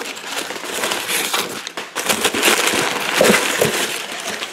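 Crumpled brown kraft packing paper rustling and crinkling as hands dig through it in a cardboard shipping box, a dense run of crackles.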